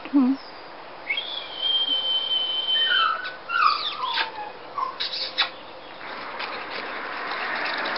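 Scottish terrier puppies whining and yelping: one long, high, steady whine, then several short squeaks that fall in pitch. A rising hiss of wind or movement comes in near the end.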